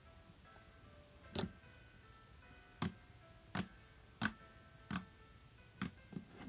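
Slime being squeezed and poked, giving seven sharp pops at irregular intervals as air pockets burst, over faint background music.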